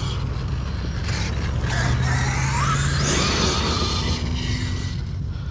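Electric motor of a large R/C monster truck revving, a whine that rises in pitch for about a second as it accelerates, with a rushing hiss along with it.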